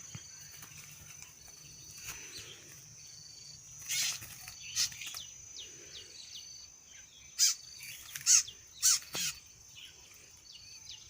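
Birds calling outdoors: a short high whistled note repeats about once a second over a steady high insect drone. Several short, loud, harsh sounds break in around the middle and in the second half.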